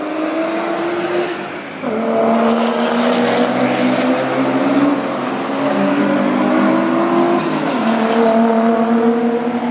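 Nissan 200SX drift car's engine revving hard, its pitch climbing steadily and falling back sharply twice, about two seconds in and again near eight seconds, at upshifts, with tyres squealing as it slides through the corner.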